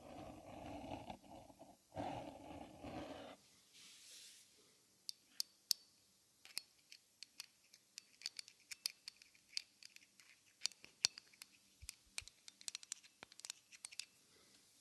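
Close-miked sounds made by a person for headphone listening: a rough, throaty growl in two pushes, a short breathy hiss, then a long run of sharp, irregular clicks.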